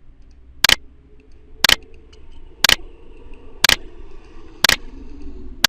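Sharp ticks at an exact one-per-second beat, six times, over a faint low hum, like a clock ticking.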